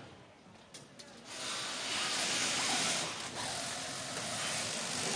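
Compressed air hissing steadily from a pneumatic tool's air line, starting about a second in after a couple of small clicks.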